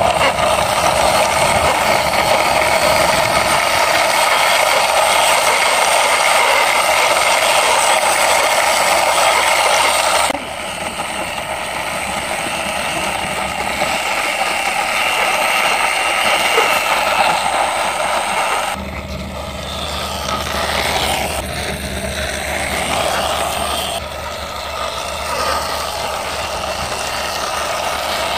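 Plastic toy ice cream car pushed by hand along a concrete wall: a steady rolling rattle from its plastic wheels and body, shifting abruptly in level and tone a few times.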